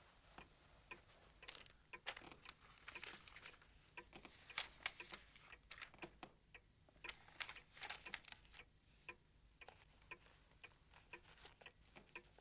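Faint clock ticking steadily, about two ticks a second, with soft rustling twice.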